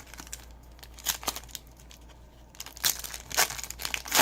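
Trading-card pack wrapper being torn open and crinkled, in short rustling bursts about a second in and again from about three seconds in.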